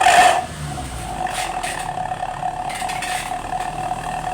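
Engine running through an aftermarket 'suos' exhaust sold as giving a snoring 'ngorok' note. It gives a short louder burst at the very start, then runs steadily.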